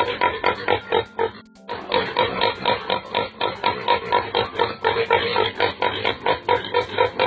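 Rapid, regular farm-animal calls, about six a second, over music, with a brief break about a second and a half in.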